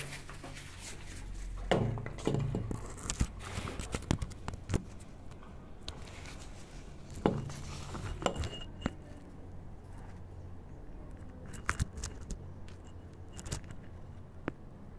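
Scattered light clicks, taps and small metallic clinks, unevenly spaced, of metal parts and fittings being handled.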